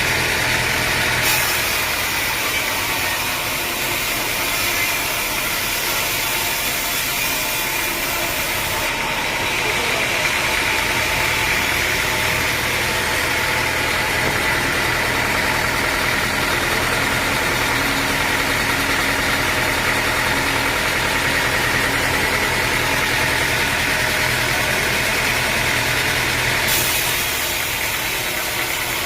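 Sawmill machinery running steadily, a motor's drone with a high hiss that shifts a little about a second in, around nine seconds in, and near the end.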